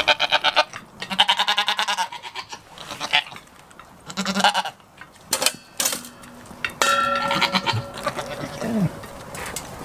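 Goats bleating several times: quavering, pitched calls, each lasting under a second, with a longer one about seven seconds in and a short falling call near the end.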